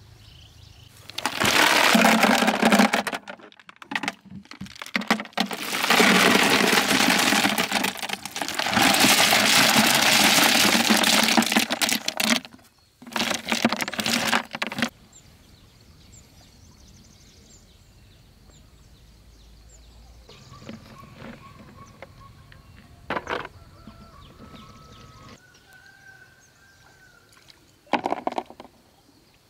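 A heap of freshwater snails being stirred by hand in a plastic basket, the shells clattering against each other and the basket in loud, rough bursts. It stops about halfway through.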